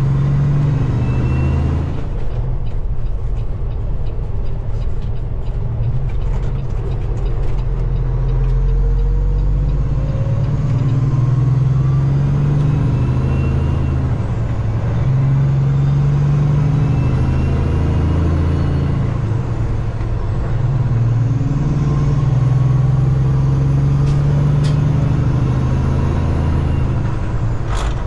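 Semi truck's diesel engine running steadily while driving, with road noise; the engine note shifts up and down a few times.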